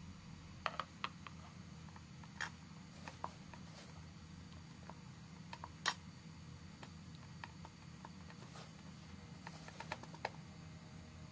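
Faint handling sounds of eggplant slices being lifted from a steel pot and pressed into flour on a ceramic plate: scattered light clicks and taps, one louder knock about halfway through and a quick run of ticks near the end. A low steady hum sits underneath.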